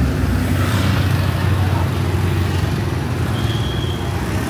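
City street traffic: the engines of passing cars and motorbikes running steadily. A brief high-pitched tone sounds about three seconds in.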